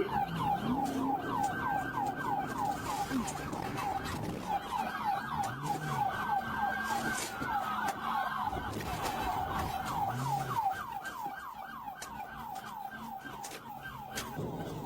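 Police car siren on a fast yelp cycle, its pitch sweeping up and down about five times a second over the engine and road noise of a car at speed. It gets somewhat quieter near the end.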